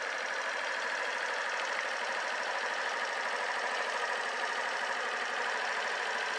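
Suzuki Swish scooter's 125 cc single-cylinder engine idling steadily, heard thin with little low end.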